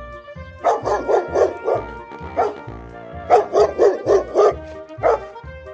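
Dog barking in two quick runs of about half a dozen barks each, with a single bark after each run, over background music with a steady beat.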